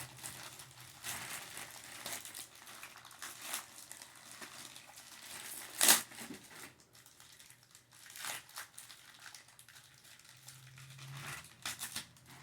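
Plastic packaging crinkling and rustling as toy parts are handled, with scattered small clicks and one sharp, louder click about six seconds in.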